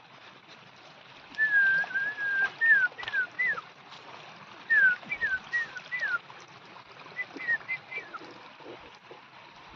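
Clear whistled notes in three phrases: a long held note, then groups of short notes that each slide downward in pitch.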